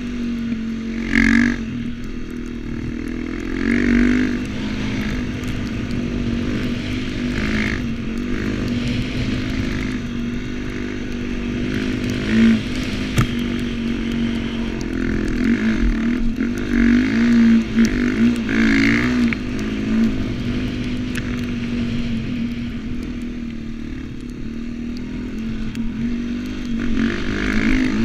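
A KTM dirt bike converted to a snow bike, its engine running under load with the pitch rising and falling over and over as the throttle is worked.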